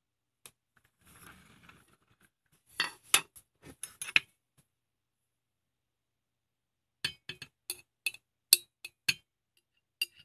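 Metal spoon clinking against a glass dessert cup and yogurt container as yogurt is scooped into the cup, in two runs of several quick, sharp clinks. A soft brief rustle comes about a second in.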